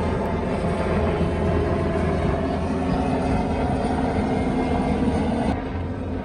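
Helicopter flying overhead: a steady drone of rotor and engine. The sound becomes slightly quieter and duller about five and a half seconds in.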